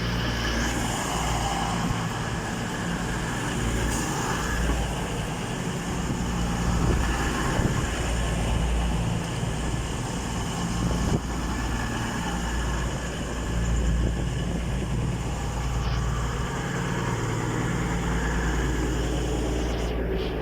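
Class 222 Meridian diesel multiple unit's underfloor diesel engines running with a steady low hum at the platform.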